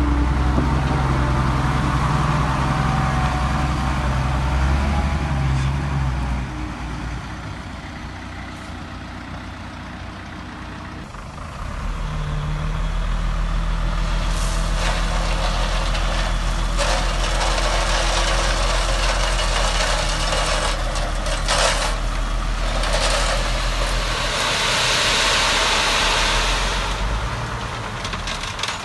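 Heavy diesel engine of earth-moving machinery running. It drops back about six seconds in and revs up again about twelve seconds in, with several bursts of hissing, rushing noise through the second half.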